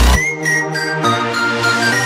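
Electronic music in a breakdown: the heavy bass and drums drop out, leaving held synth notes and a short high melodic line.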